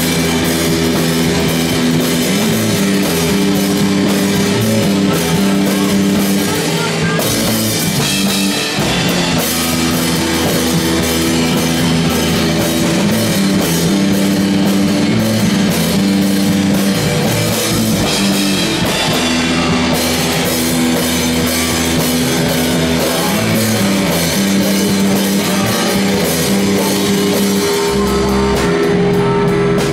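Live rock band playing loudly: guitars over a drum kit keeping a steady beat, with a brief change in the playing about a third of the way through.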